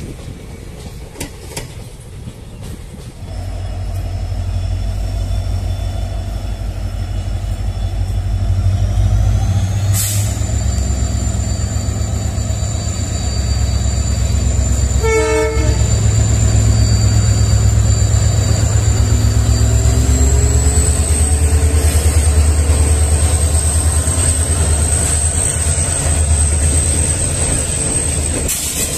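Diesel locomotive hauling a passenger train past, its engine a deep rumble that starts about three seconds in, with a high whine over it that rises in pitch twice. There is a brief horn toot about halfway through.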